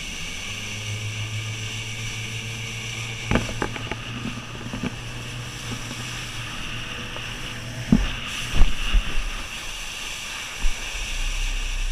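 Motorboat engine running steadily under wind buffeting the microphone, with a few sharp knocks; the engine note drops away about two-thirds of the way through.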